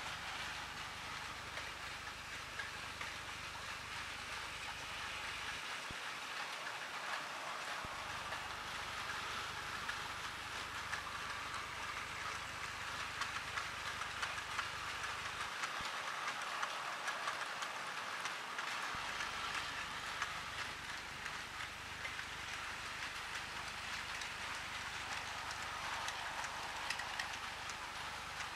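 Battery-powered toy train running on its track: a steady whir with scattered light clicks.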